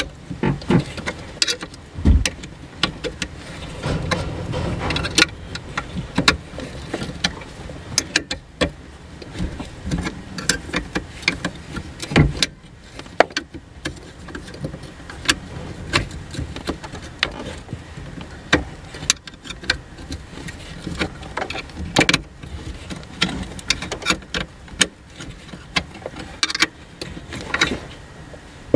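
Ratchet spanner clicking in short, irregular runs on the clutch master cylinder's bracket bolts, with a few louder knocks of the tool against the metal bracket.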